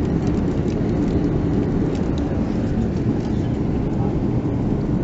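Steady cabin noise of an Airbus A330-300 in flight: the jet engines and the airflow over the fuselage make an even, low rush heard from a window seat.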